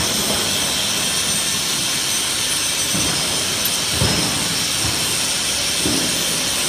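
Steady rushing noise of factory machinery running, with a few dull knocks from hand work on the machine's cutting die, the loudest about four seconds in.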